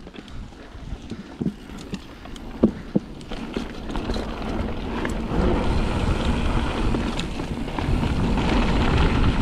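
Mountain bike rolling fast down a gravel trail: tyre noise over loose gravel, with a few sharp knocks and rattles from the bike in the first few seconds. Wind noise on the microphone grows louder about halfway through as the bike picks up speed.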